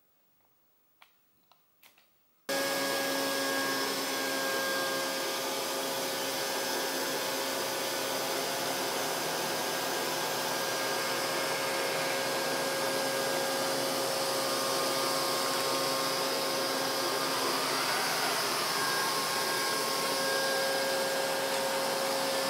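A couple of faint clicks in near silence, then a Neato robot vacuum cleaner starts abruptly about two and a half seconds in and runs with a steady hum of its suction motor and brushes, with a short rise and fall in pitch near the end.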